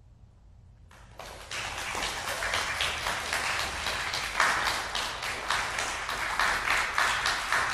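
Audience applause breaking out about a second in after a brief hush, dense rapid clapping that grows stronger and keeps going.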